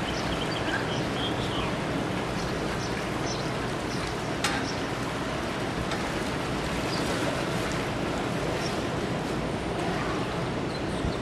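Steady rushing outdoor ambience of distant ocean surf and wind, with a few faint high chirps and a single sharp click about four and a half seconds in.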